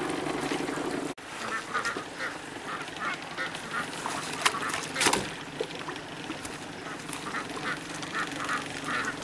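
Ducks quacking in a string of short calls, with a couple of sharp knocks or splashes about halfway through. A steady low hum cuts off about a second in.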